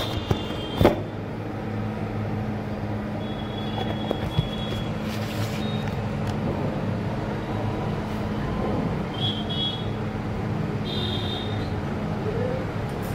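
Steady low hum with background noise, a couple of knocks in the first second as a hand touches the phone, and brief high chirps now and then.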